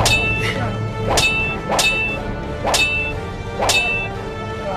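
Sword clashes: five sharp metallic clangs, each ringing briefly, coming roughly every half second to one second.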